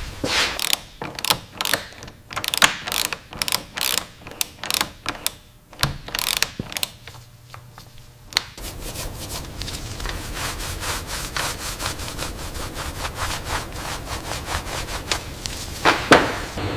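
Repeated hand rubbing strokes on a surface, as in sanding. There are single strokes for about eight seconds, then quicker, closer strokes, and one louder stroke near the end.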